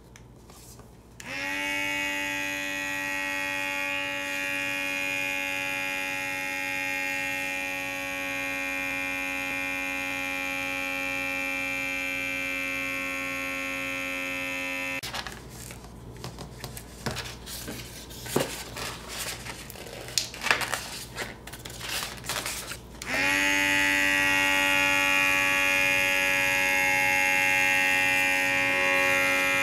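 Small 6–9 volt DC mini air pump motor running off a 9-volt battery, buzzing steadily as it pumps air into a long modelling balloon. It switches on about a second in and stops about halfway, followed by several seconds of handling clicks and rubs. It then starts again, louder, for the second balloon.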